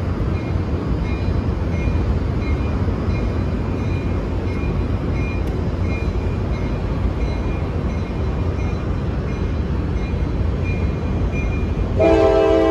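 Amtrak California bilevel passenger train rolling slowly through the station with a steady low rumble, and a faint bell dinging about once a second. Near the end a loud multi-tone train horn sounds.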